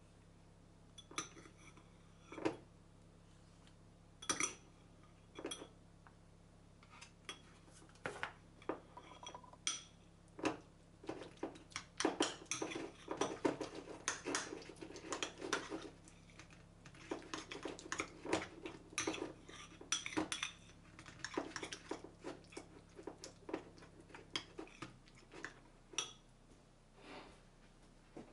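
Metal teaspoon clinking and scraping against a glass bowl and a plastic tub as a creamy spread is scooped out and stirred into flaked tuna. Scattered single taps at first, then a long run of quick clinks while stirring, thinning out again near the end.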